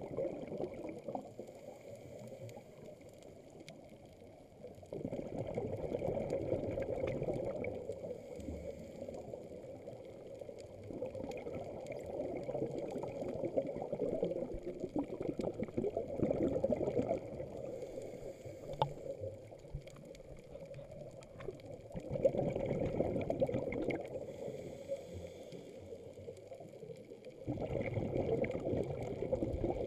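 Scuba regulator exhaust bubbles gurgling underwater, four surges of a few seconds each, several seconds apart with each breath out.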